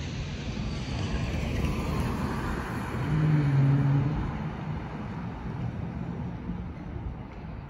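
Landing airliner passing overhead: a broad engine rumble with a whine that falls in pitch over the first couple of seconds. A car drives past close by about three seconds in, the loudest moment.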